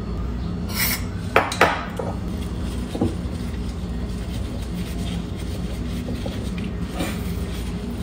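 Metal parts of a disassembled electric fan motor being handled and scraped: a few sharp clinks and scrapes of the rotor, housing and a screwdriver, loudest twice in quick succession about a second and a half in, and again near three and seven seconds, over a steady low hum. The motor housing is being cleaned out with a rag on a screwdriver.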